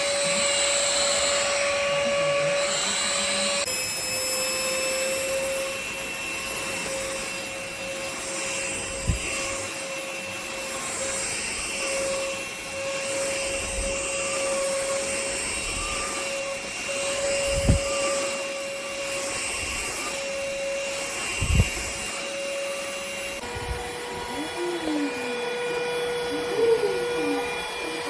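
Cordless stick vacuum running steadily with a high motor whine. Its pitch steps down slightly about four seconds in and again near the end, with a few dull knocks along the way.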